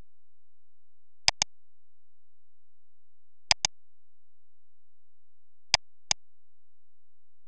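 Computer mouse button clicked three times, about two seconds apart, each a sharp press-and-release pair of clicks.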